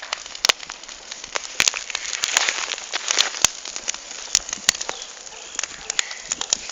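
Campfire crackling, with many sharp, irregular pops and snaps over a steady hiss.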